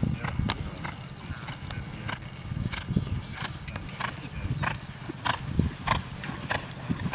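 Horse cantering on turf: its strides sound as a steady rhythm of beats, about one and a half a second.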